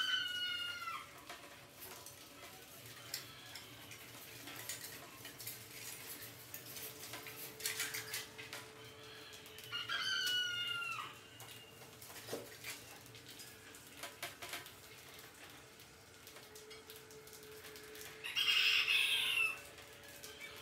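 Chickens calling: two short pitched calls about ten seconds apart and a harsher squawk near the end, over faint scattered clicks and a low steady hum.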